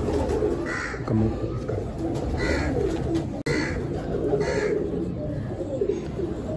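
Domestic pigeons cooing, many low coos overlapping without pause, with brief higher-pitched sounds recurring every second or two.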